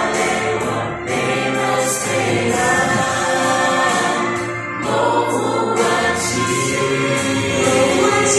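Mixed male and female vocal group singing a gospel song together through handheld microphones, the voices sustained in long phrases with brief breaks between them.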